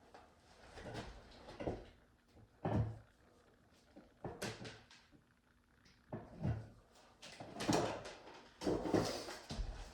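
Irregular knocks, rustles and scrapes of hands handling a ceiling light fixture and its wires while hooking them up, over a faint steady refrigerator hum.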